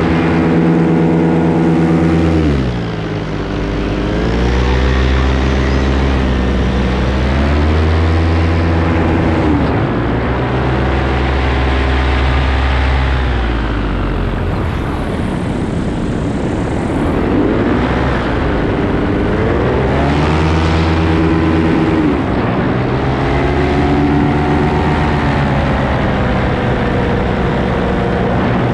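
Paramotor engine and propeller in flight, the throttle repeatedly eased back and opened up again so the engine note falls and rises every few seconds, over a steady rush of air.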